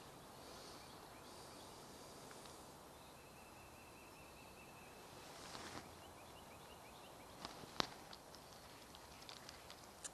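Near silence: faint outdoor background hiss, with a faint high steady trill in the middle and a short run of soft high chirps. A couple of sharp clicks come about three quarters of the way through.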